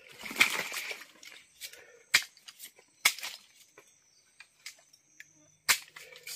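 Sharp cracks of woody asam payak palm stems being struck and broken: three loud ones about a second or more apart, with softer ticks between. There is a brief rustle of stems and fronds at the start.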